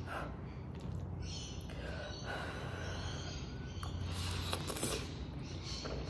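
A person slurping jjajang ramen noodles off a fork, with wet mouth sounds and breaths through the nose. The loudest slurps come about four to five seconds in.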